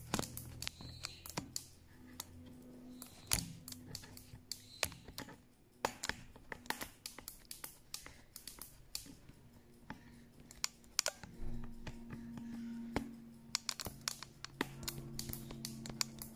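Quiet, irregular tapping and clicking of fingers typing, in short flurries of several clicks a second, over faint steady low tones.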